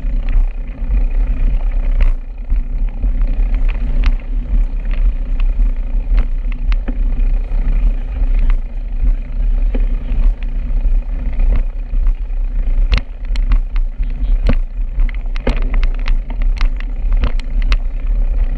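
Steady low wind noise on the microphone of a moving bicycle, with road noise and many short sharp clicks and rattles, coming faster in the last few seconds.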